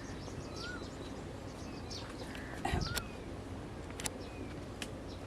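Birds chirping repeatedly over steady outdoor background noise, with a low thump about three seconds in and a couple of sharp clicks near the end.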